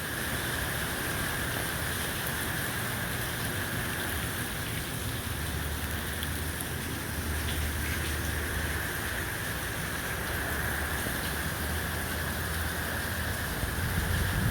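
Steady hurricane rain falling, with wind rumbling over the microphone.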